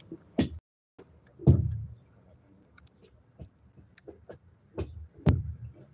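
Several dull knocks and thumps, the loudest about one and a half seconds in, with light clicks between them, inside a car.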